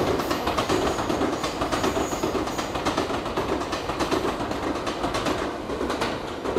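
Electric commuter train passing close by, its wheels clattering over the rail joints in a rapid, steady rhythm that fades slightly near the end. It is heard through a compact digital camera's built-in microphone.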